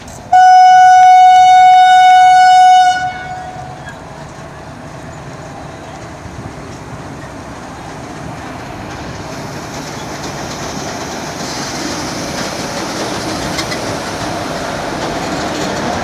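WAP-4 electric locomotive's horn sounding one long, loud blast of about two and a half seconds as the train departs. Then the train's running noise as it moves off past the platform, slowly growing louder.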